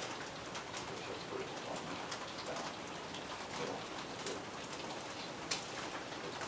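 Several people typing on computer keyboards: scattered, irregular key clicks over a steady hiss of room noise, with one sharper click about five and a half seconds in.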